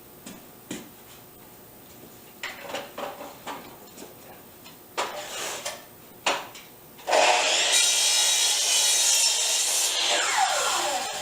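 Knocks of a rough lumber board being handled and set in place, then a power saw switches on, trims the end of the board for about four seconds and winds down with a falling whine near the end.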